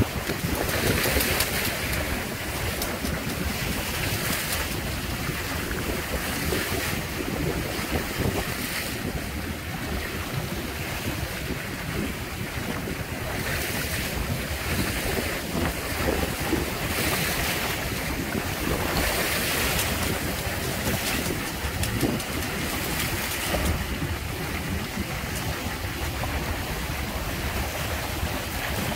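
Wind buffeting the microphone over water rushing and splashing along the hulls of a Windrider 17 trimaran under sail, coming in irregular surges.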